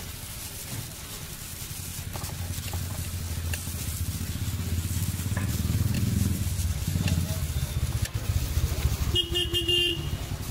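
A motor vehicle engine running close by, its low rumble growing louder over several seconds, then a short horn beep about nine seconds in.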